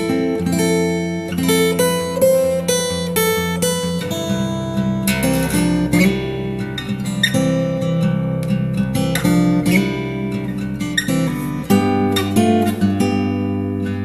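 Background music: acoustic guitar playing plucked and strummed chords, with the harmony shifting about four seconds in.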